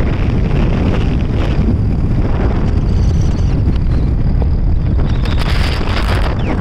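Wind buffeting the microphone of a phone held up through the open sunroof of a moving Tata Nexon, a steady low rumble over the car's road and engine noise.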